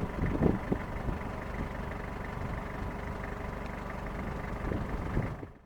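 Steady engine and road noise of a car driving, with a few brief low bumps in the first second. The sound cuts off abruptly near the end.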